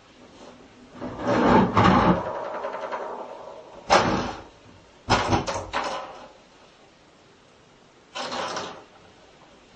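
A plastic bowl knocked around inside a plastic bathtub by a cat: a longer clatter that rings on briefly about a second in, then sharp knocks near four seconds, a quick run of knocks a second later and one more near the end. The knocks echo in the tub.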